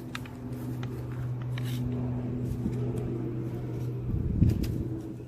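Small clicks and taps of door-handle parts being fitted together by hand, over a steady low hum, with a louder low rumble about four seconds in.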